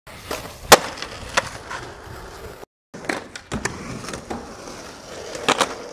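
Skateboard wheels rolling on concrete, broken by sharp clacks and smacks of the board popping and landing, the loudest under a second in. The sound cuts out completely for a moment a little before the middle.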